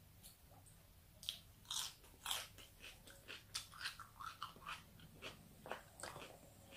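Close-up crunching and chewing of mouthfuls of raw lettuce and salad vegetables: a run of irregular, crisp crunches that starts about a second in, the loudest near two seconds in.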